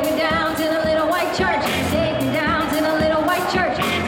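Live band playing: a woman sings the lead into a microphone, holding notes with vibrato, over a drum kit keeping a regular beat and a guitar.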